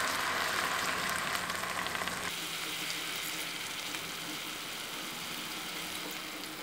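Chicken pieces sizzling in a frying pan in soy sauce and vinegar, a steady hiss while they are stirred. The sizzle changes abruptly and turns a little quieter about two seconds in.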